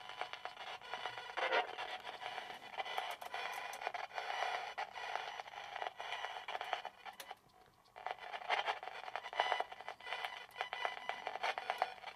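Spirit box sweeping through radio stations: choppy, fast-cut fragments of radio music and static, broken off every fraction of a second, with a brief drop-out about seven seconds in.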